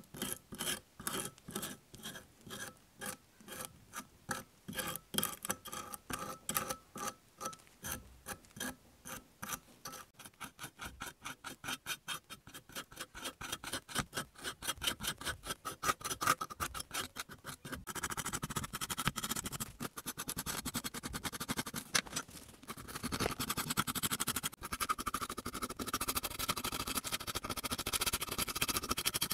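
A stiff brush and a metal pick scrub and scrape flaking paint and corrosion off a diecast model car body. The scrubbing comes in short strokes, about two a second at first, getting quicker, and from about two-thirds of the way in it turns into near-continuous scratching.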